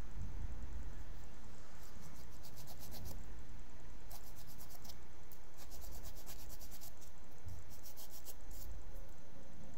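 Nail file rubbed quickly back and forth across fingernails, giving runs of short, scratchy strokes from about two seconds in until near the end.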